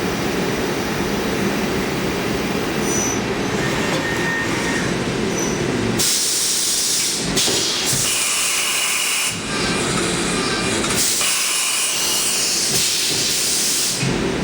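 CNC mill profile-milling Elmax steel, its spindle turning 3600 RPM as the cutter takes 1/8-inch passes. A steady mix of machine noise and cutting runs throughout. About six seconds in, a loud high hiss takes over, cutting out briefly twice.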